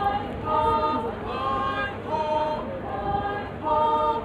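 Folk dance troupe's group chant: many voices singing a short phrase in unison, repeating about every second and a half.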